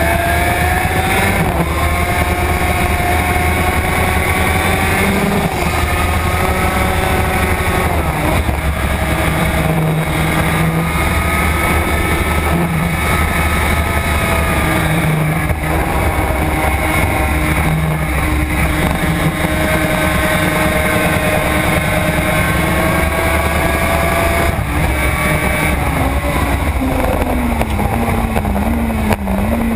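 Suzuki RG500's two-stroke square-four engine running hard, its pitch climbing through the gears with a break at each change, over wind rushing past the bike. Near the end the revs drop in steps as it shifts down.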